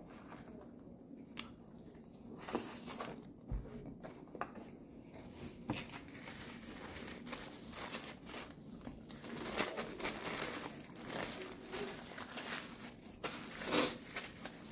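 Food packaging crinkling and rustling as it is handled, with scattered small clicks and knocks, loudest about two and a half seconds in and again near the end.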